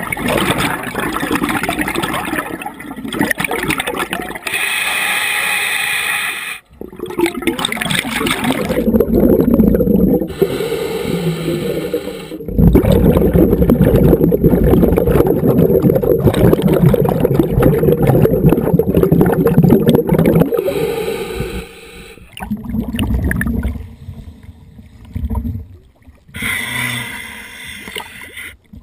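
Water bubbling and gurgling heard underwater, loudest and deepest in the middle, broken by a few abrupt cuts, then lighter water splashing at the surface near the end.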